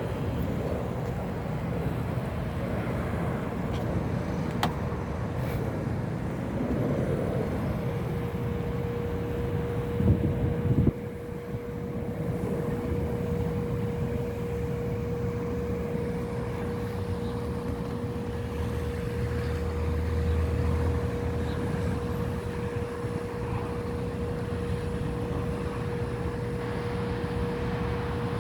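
Boeing 777 jet engines at takeoff power: a steady low rumble, joined about eight seconds in by a steady hum, with a couple of thumps a little after ten seconds.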